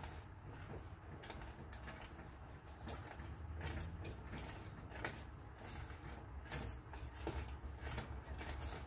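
Silicone spatula stirring thickening brigadeiro in a metal saucepan, scraping the pan's bottom and sides in irregular strokes, over a low steady hum.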